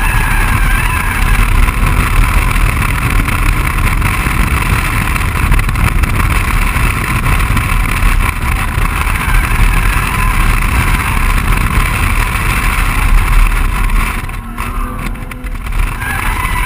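BMW 135i's turbocharged inline-six running hard at track speed, mixed with heavy wind and road rush over an outside-mounted microphone. The sound drops for a moment about two seconds before the end, then picks up again.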